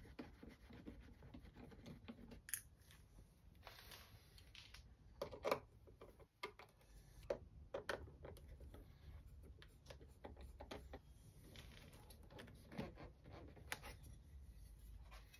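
Faint clicks, taps and scraping of a screwdriver backing out small Torx screws from a car's interior trim panel, with a few sharper clicks scattered through.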